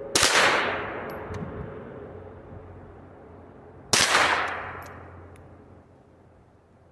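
Two single shots from a pistol-caliber sub-gun, about four seconds apart, each followed by a long fading echo.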